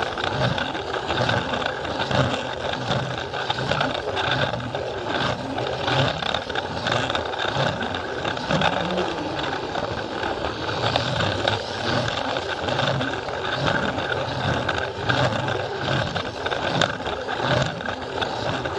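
Battery-powered Plarail toy train running on plastic track: a steady motor whir with wheels rattling and frequent irregular clicks.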